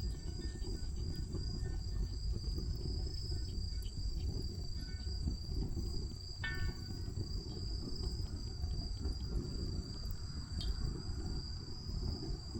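Insects, such as crickets, trilling in a steady, high, even tone over a low, steady rumble, with a few faint clicks.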